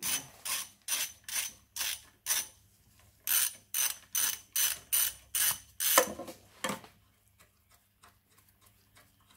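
Ratchet socket wrench clicking in quick back-and-forth strokes as a bolt on the engine's lower throttle assembly is undone, in two runs with a pause of about a second between them. After about seven seconds only faint light ticking remains.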